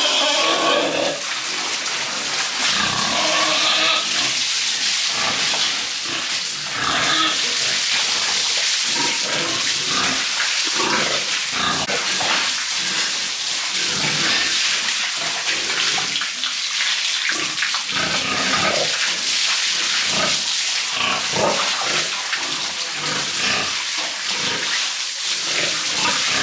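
Pigs grunting and squealing on and off while water sprays steadily over them and the pen as they are washed.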